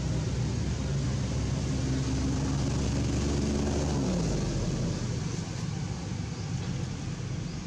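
Engine of a motor vehicle passing close by, its pitch dropping as it goes past about four seconds in and then fading, over a steady background hiss.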